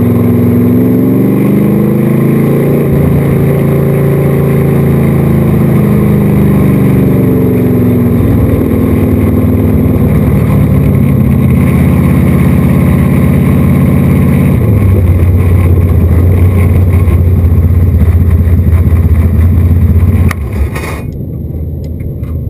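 Modified race car's carbureted V8 engine, heard from the cockpit, falling in pitch as the car slows, then running steadily at low revs as it rolls through the pits. The engine cuts off about 20 seconds in, leaving a few faint clicks.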